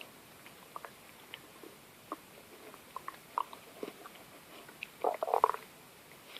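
A person's stomach gurgling: scattered small pops and squelches, then a louder run of gurgles about five seconds in.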